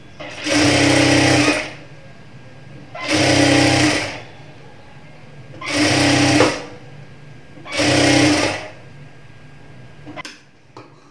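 Industrial lockstitch sewing machine stitching fabric in four short runs of about a second each, with a faint steady hum between runs. A few light clicks near the end.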